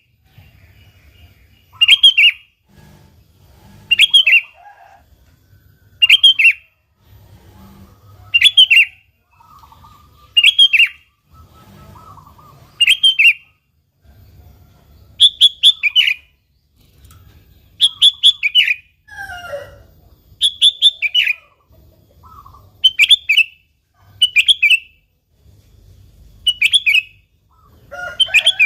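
Sooty-headed bulbul (kutilang) calling: a loud, bright phrase of a few quick notes, repeated about every two seconds, with a faint lower falling call about two-thirds of the way through.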